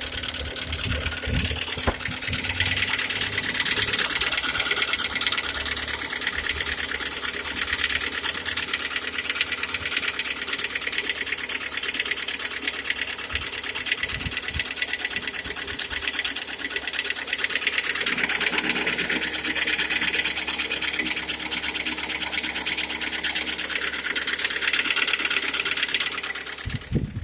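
Hyundai/Kia G4KD 2.0-litre four-cylinder engine running with a steady, rapid metallic knocking at about 102,000 km.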